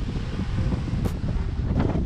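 Strong wind buffeting the microphone: a steady low rumble, with a couple of short clicks about a second in and near the end.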